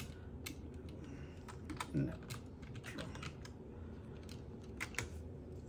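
Computer keyboard typing: single key clicks coming irregularly, a few per second.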